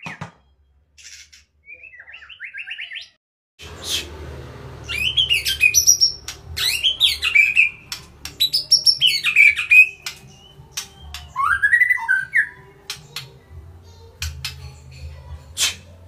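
White-rumped shama singing: short whistled notes at first, then from about four seconds in loud, varied phrases of rich whistles sliding up and down, interspersed with sharp clicks. A low hum runs under the song from that point.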